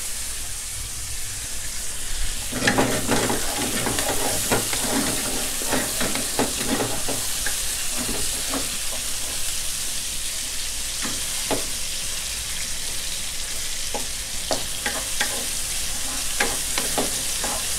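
Chopped chicken and minced garlic sizzling in hot oil in a non-stick wok while a wooden spatula stirs them, scraping and knocking against the pan. The chicken is being stir-fried to about 70% done. The scraping starts about two and a half seconds in and comes in clusters of short strokes.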